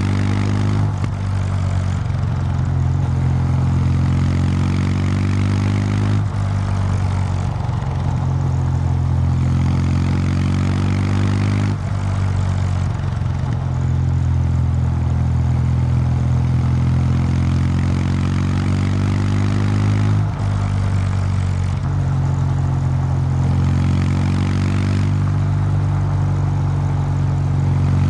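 Kawasaki W800 Street's air-cooled 773 cc parallel-twin engine running through its stock exhaust, ridden up a mountain road under load. The engine note climbs and falls with the throttle, with several brief dips where the pitch drops and picks up again, as at gear changes.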